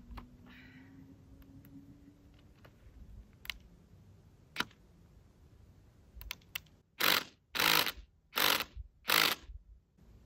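A tool is working a screw-in ground anchor at the foot of a windmill tower leg. A few scattered knocks are followed by four short bursts of rapid clicking, about two-thirds of a second apart.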